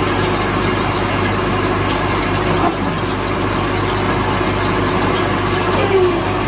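Steady hum of aquarium pumps, with air bubbling from airstones in the water.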